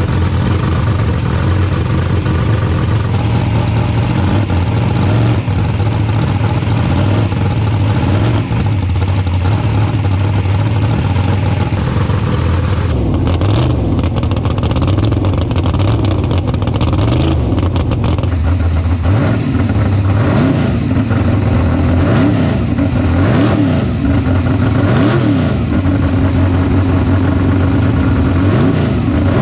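A 1963 Ford Falcon drag car's engine runs steadily, then is revved repeatedly in the second half, its pitch rising and falling with each blip of the throttle.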